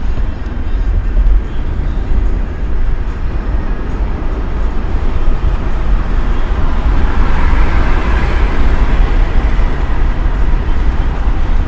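Road noise from a car driving: a steady low rumble of tyres and engine. About six or seven seconds in, a hiss in the middle range swells and then eases off a few seconds later.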